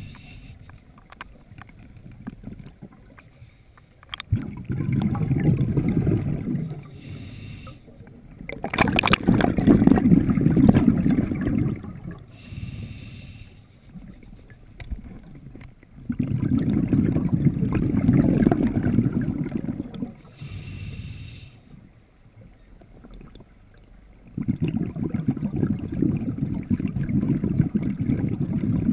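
Scuba diver's own breathing underwater on a sidemount open-circuit regulator: four exhalations of rumbling bubbles, each two to four seconds long, about every seven or eight seconds, with short hissing inhalations through the regulator between them.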